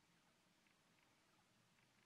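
Near silence: faint room hiss with a few very faint ticks.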